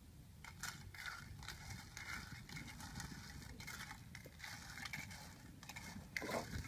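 A metal spoon stirring shellfish in a small cooking pot: the shells clatter and scrape against each other and the pot in a quick, irregular run of clicks, starting about half a second in.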